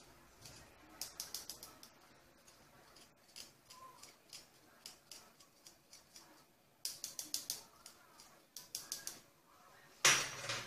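A metal spoon scraping and tapping inside a small metal mesh sieve, working custard powder through it. The sound comes in a few short runs of rapid, scratchy ticks with quiet stretches between.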